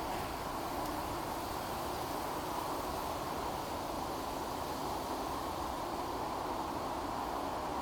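Steady outdoor background noise: an even, unbroken hum with no distinct events in it.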